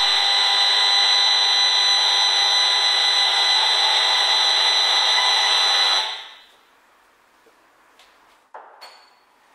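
Electroacupuncture (EAV) measuring device giving a steady electronic buzzing tone while its probe is held on an acupuncture point of the hand. The tone fades out about six seconds in, followed by a few faint knocks.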